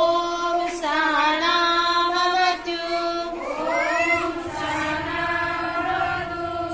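A group of women singing a devotional prayer together in long, held notes, with the pitch sliding between them.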